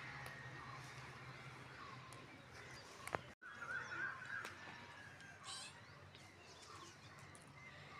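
Faint outdoor background with scattered distant bird chirps over a low steady hum. A single sharp click comes about three seconds in, and the sound drops out for a moment just after it.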